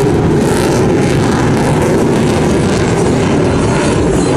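Sukhoi Su-30MKM fighter's twin Saturn AL-31F afterburning turbofans, loud steady jet noise with a deep rumble as the jet flies a tight high-power turn.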